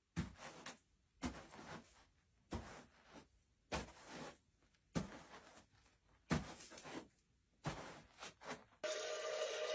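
Seven evenly spaced knocks or thuds, about one every 1.3 seconds, each with a short ring-out, followed by two or three quicker light taps near the end.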